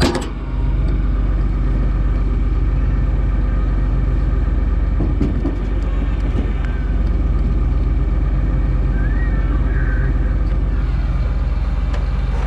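John Deere 4555 tractor's six-cylinder diesel engine idling steadily, with one sharp knock at the very start.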